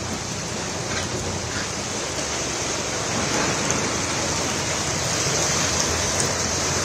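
Steady rush of fast-flowing floodwater pouring across a road, a little louder from about three seconds in.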